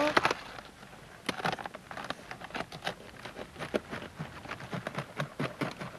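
Crisp, irregular crackling and rustling of cabbage leaves as a hand grips a head of cabbage and cuts it from its stalk.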